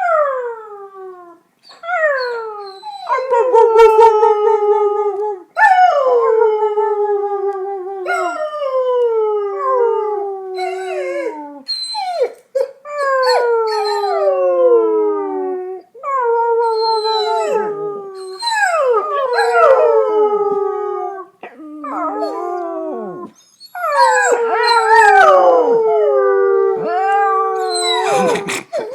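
Dogs howling: a run of long howls, each sliding down in pitch, with two or more voices overlapping into a chorus in the second half.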